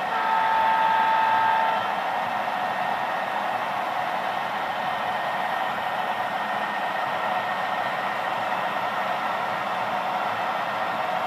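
HO-scale model diesel locomotives running on the layout, their sound decoders playing a steady diesel engine drone mixed with the whir of the motors and wheels. Near the start a horn chord of several steady notes sounds for about a second and a half.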